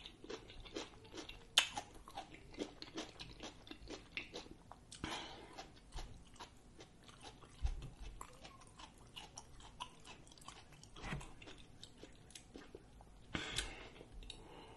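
Close-miked chewing: a person working a mouthful of food with the mouth closed, a steady run of small wet clicks and smacks.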